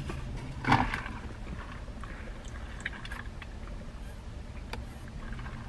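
Steady low hum inside a parked car's cabin, with one short louder sound just under a second in and a few faint clicks and taps afterwards as a drink cup is handled and sipped through a straw.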